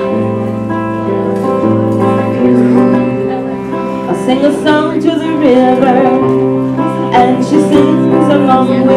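Pop song playing as a soundtrack: held chords throughout, with a melody line coming in over them about four seconds in.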